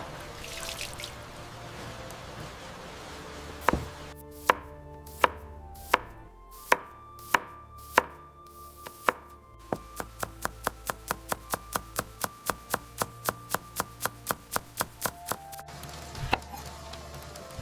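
Knife chopping food on a cutting board: a few slow, separate cuts, then a faster steady run of chops at about three a second.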